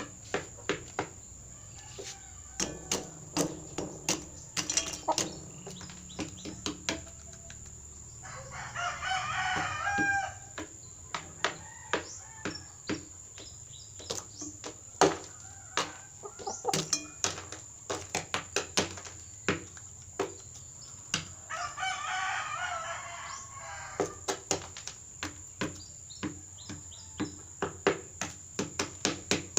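A rooster pecking at otap biscuits: a long run of sharp, irregular beak taps. It crows twice, about a third of the way in and again about three-quarters through.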